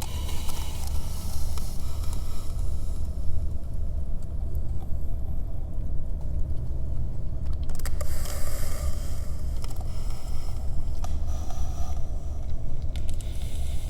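Steady low rumble with a rushing hiss over it that swells and fades a few times, and a few faint clicks; no howl or call stands out.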